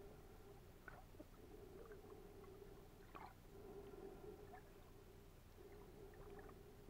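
Near silence underwater: a faint steady hum with scattered faint clicks and crackles, a small cluster of them about three seconds in.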